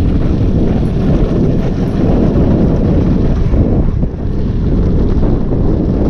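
Wind buffeting the microphone over a steady rumble of kick-scooter wheels rolling fast over rough asphalt, as a husky pulls the scooter downhill.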